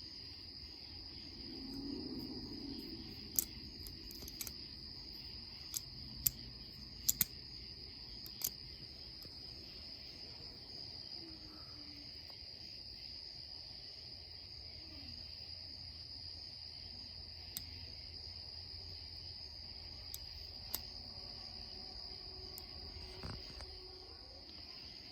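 Light, sharp metal clicks from working the GOAT TOOL multitool's pliers and cutters while its pivot screws are being adjusted: a cluster of clicks in the first third, a few more later. A steady high-pitched whine runs underneath throughout.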